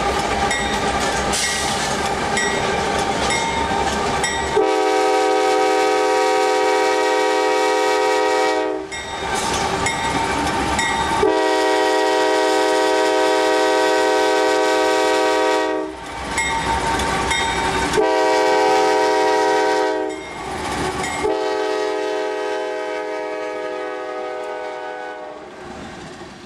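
CSX diesel locomotive's multi-tone air horn sounding the grade-crossing signal: two long blasts, a short one and a final long one, which fades out near the end. Under and between the blasts, the engine and the wheels on the rails rumble as the train accelerates.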